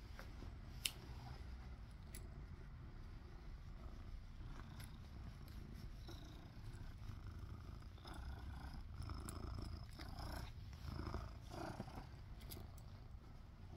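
A kitten purring steadily, close up against the microphone. There is a sharp click about a second in and some rustling in the second half.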